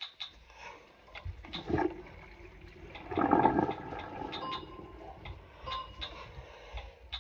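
Water splashing and sloshing in a bathroom sink as a wet stuffed animal is handled, loudest about three seconds in. Scattered light knocks and clicks of things being moved around the sink and counter.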